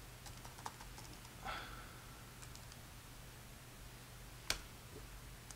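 Faint clicks and taps on a laptop keyboard, with one sharper click about four and a half seconds in, over a low steady hum.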